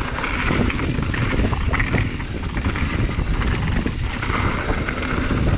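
Mountain bike descending a dirt trail at speed: wind buffeting the action-camera microphone over the rumble of knobbly tyres on loose dirt and rock, with short knocks and rattles from the bike over bumps.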